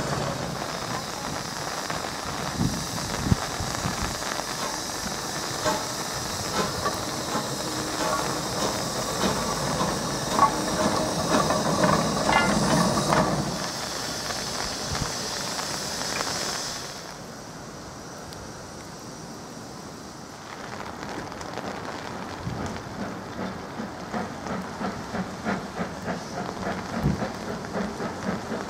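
Isle of Man Railway No. 8 Fenella, a Beyer Peacock 2-4-0 tank steam locomotive, hissing steam loudly with scattered clanks for the first half. The sound drops away suddenly and then gives way to its exhaust beats as it pulls away, about two chuffs a second.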